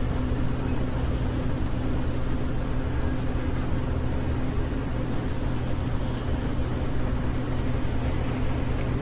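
Steady low hum with an even hiss, unchanging throughout; no chirps or voice stand out.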